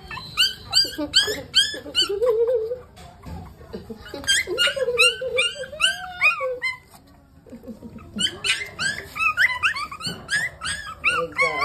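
Puppies crying: rapid high-pitched squeals, several a second, over a lower drawn-out whine. They break off briefly about seven seconds in, then start again.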